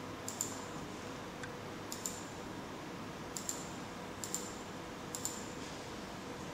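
Computer mouse button clicking as the DVR's on-screen menus are stepped through: five clicks about a second apart, each a quick pair of sharp ticks.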